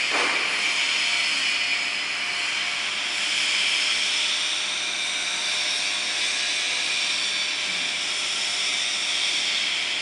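Steady machine whine with a rushing hiss from CNC router workshop equipment, running evenly with no cutting strokes. A brief falling sweep comes right at the start.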